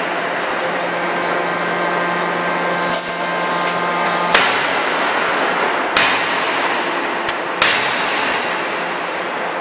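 CNC closed-die forging hammer striking three sharp blows, about a second and a half apart, over a steady machine hum and hiss.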